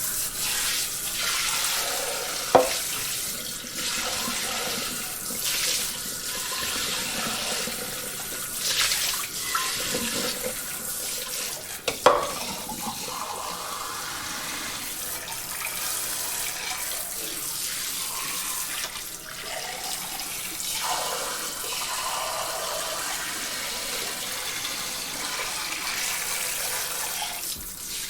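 Kitchen sink spray nozzle running water over dishes, a steady spray whose tone shifts as the stream moves across them. Two sharp clinks of dishes knocking, about two and a half seconds in and again about twelve seconds in.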